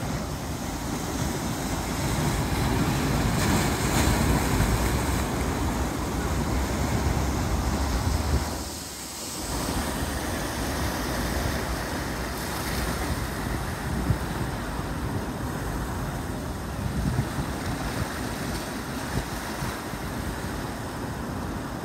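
Ocean surf surging and churning between rocks on a rocky shore: a steady rushing with a deep rumble. It briefly drops away about nine seconds in.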